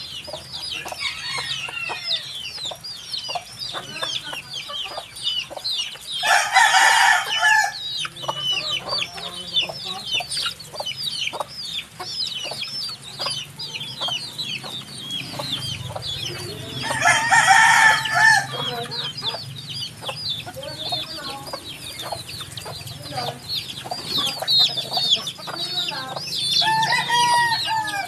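A brood of baby chicks cheeping non-stop: a dense stream of short, high peeps, each sliding down in pitch. Twice, about ten seconds apart, a louder and longer call from an adult chicken cuts in, lasting about a second and a half each time. Near the end come a few lower calls.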